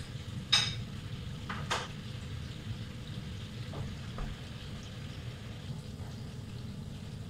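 Beef kofta meatballs deep-frying in a pan of hot oil, bubbling steadily. A sharp metallic clink about half a second in, then a few lighter clicks over the next few seconds.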